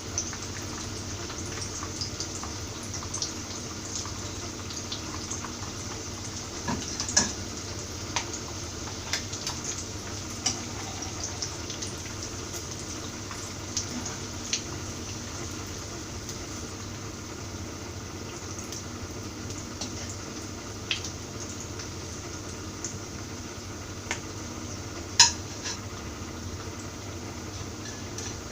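Hot oil sizzling steadily in a frying pan on medium heat, with scattered clinks of a metal utensil against the pan; the loudest clink comes about 25 seconds in.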